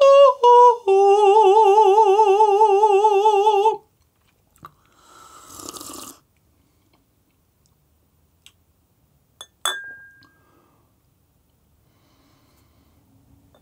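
A man's voice singing a high, open 'ahh': a few short stepped notes, then one long note with a wide vibrato that stops about four seconds in. Then a slurping sip of coffee, and a sharp glassy clink with a short ring about ten seconds in.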